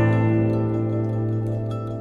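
Background music: a plucked-string chord rings out and slowly fades.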